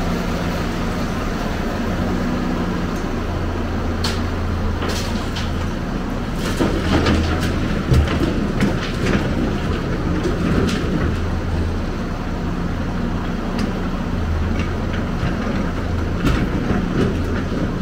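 Hyundai crawler excavator's diesel engine running, its hum strengthening and easing as the machine works, with clattering crashes of brick and concrete rubble dumped into a dump truck's bed through the middle and again near the end.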